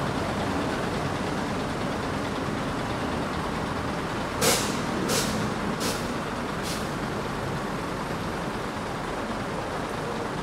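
Daewoo BH115 bus's diesel engine idling steadily. About halfway through come four short hisses of released air from the bus's air system, the first the loudest.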